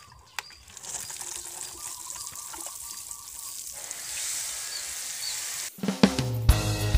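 Water showering from a watering can's spray rose onto loose, freshly dug soil around a newly planted sapling, a steady hiss. Guitar music comes back in about six seconds in.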